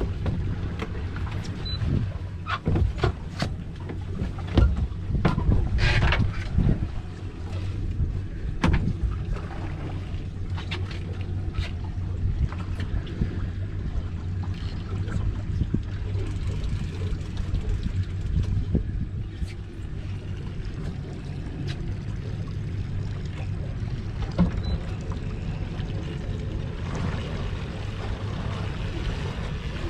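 Boat engine running with a steady low hum, with scattered sharp knocks and clicks that are thickest and loudest in the first dozen seconds.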